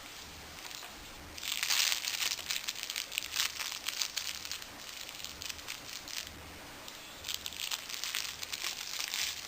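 A baby's book crinkling and rustling as she grabs and handles it, in irregular bursts that start about a second and a half in.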